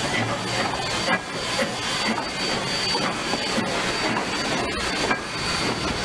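Steam locomotive 2141, a 2-8-0 Consolidation, hissing steam as it pulls its passenger coaches past. Irregular knocks come about twice a second as the train rolls by.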